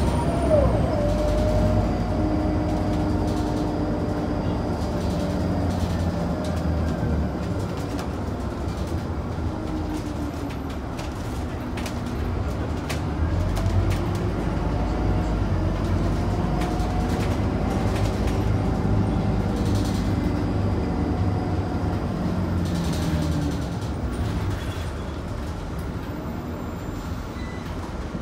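Scania DC9 nine-litre six-cylinder diesel engine and ZF five-speed automatic gearbox of a Scania K94UB bus under way, heard from on board. The engine note rises and falls as the bus pulls away and shifts gear, with a sharp drop in pitch right at the start.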